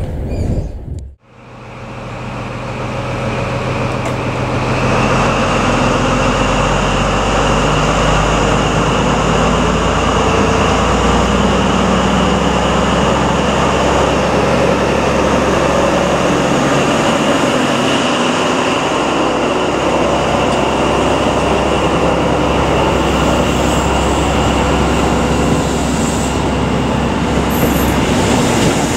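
High Speed Train running past along a platform: the Class 43 power car's Paxman VP185 diesel engine with a steady high whine, then the steady rumble and rattle of the Mark 3 coaches. The sound starts about a second in and builds over a few seconds to a loud, steady level.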